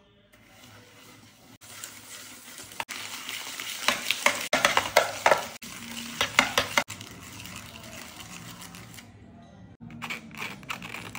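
Metal utensils scraping and clicking against a metal baking tray as a coffee and sugar mixture is stirred and beaten, with fast, loud strokes in the middle.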